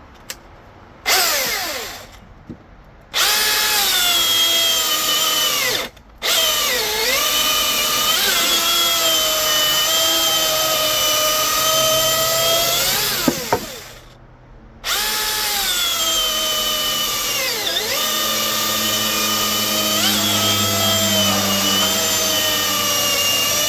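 Milwaukee M18 dual-battery electric chainsaw fitted with an Oregon 72EXL full-chisel 3/8 chain, cutting hardwood. A short rev about a second in, then two long cuts with a brief stop between them. The motor's whine dips in pitch and recovers as it bogs under load in the wood.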